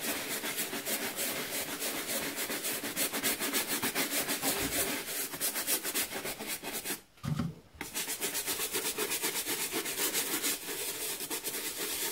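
Stiff plastic scrub brush scrubbed hard and fast back and forth over a white Nike trainer's soapy rubber sole, a quick run of scratchy strokes with a brief pause about seven seconds in.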